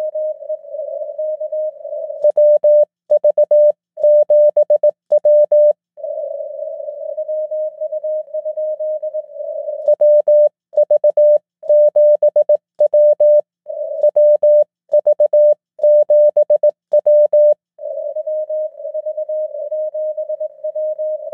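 Morse code (CW) from a SunSDR2 DX transceiver at one pitch: a hissy, filtered received signal, broken twice, from about two seconds in and again from about ten seconds in, by the operator's own sidetone keying clean, loud dits and dahs with silent gaps. The keyed bursts are the operator calling back to a Parks on the Air station.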